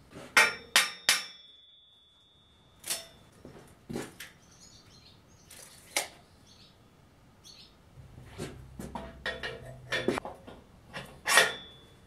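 Sharp metallic knocks and clanks on a steel sawmill frame: three in quick succession, the last leaving a short ringing tone, then single knocks spaced a few seconds apart and a cluster of lighter clicks near the end.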